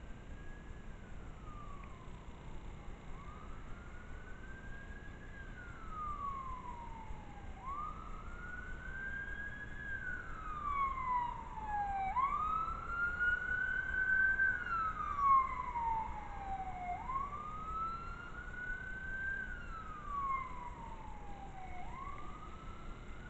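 Emergency vehicle siren in slow wail mode. Each cycle rises over about two seconds and falls over about two and a half, repeating about five times. It grows louder toward the middle and fades again.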